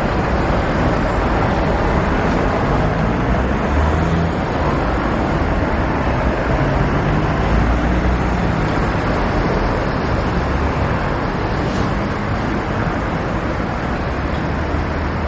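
Steady rumble of two helicopters, a camouflaged attack helicopter and a smaller one, flying over a city riverside, mixed with road traffic noise.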